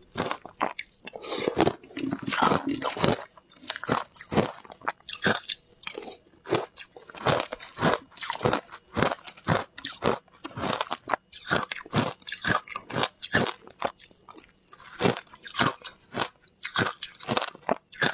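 Shaved ice being bitten and crunched between the teeth close to a clip-on microphone: a fast, uneven run of crisp crunches, several a second.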